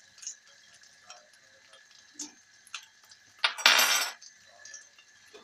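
Butter bubbling faintly in a wok with small crackles; about three and a half seconds in, a short loud noisy burst, just under a second long, as half a teaspoon of trassi (shrimp paste) goes in from a spoon.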